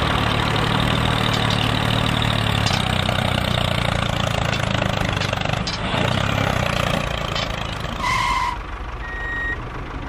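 Tractor engine running steadily with a low hum, dying away about seven seconds in. A short beep sounds about a second later, followed by a thin high tone.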